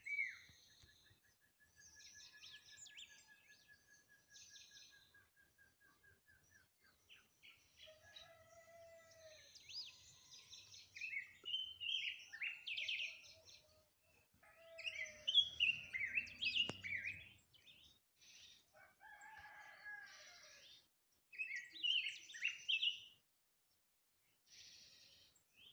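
A tuya, the yellow-and-black Andean grosbeak, singing: rich, varied whistled and warbled phrases broken by short pauses, with a steady rapid trill in the first few seconds. A short low rumble with a click comes about two-thirds of the way through.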